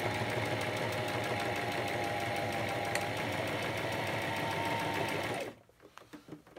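Brother SM2700 household sewing machine running at a steady speed and stitching a straight seam, a constant motor whine over the rapid needle clatter. It stops about five and a half seconds in, followed by a few light clicks of handling.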